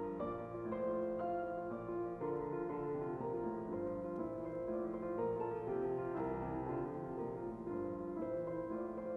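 Background piano music: a slow melody of single notes over sustained chords.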